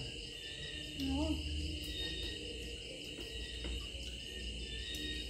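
Steady high-pitched insect chirring, like crickets, with a short hummed voice sound rising and falling about a second in.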